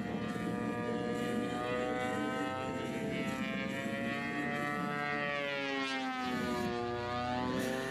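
Large-scale RC aerobatic plane's GP 123 two-stroke gas engine and 28×10 propeller running in flight, a steady drone whose pitch climbs gently, drops about five seconds in, then rises again near the end as the throttle and the plane's path change.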